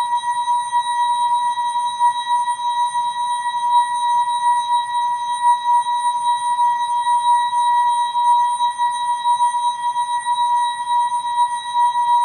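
The ASKfm notification sound effect, slowed and time-stretched into a steady electronic tone with fainter higher overtones, held unchanged with its loudness wavering slightly.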